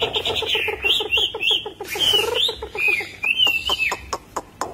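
Chinese hwamei singing: a fast run of rapidly repeated low notes laced with short rising-and-falling whistles, then sharp clicks near the end.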